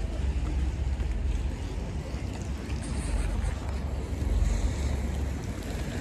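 Wind buffeting the microphone: a low rumble that rises and falls, over a steady background hiss.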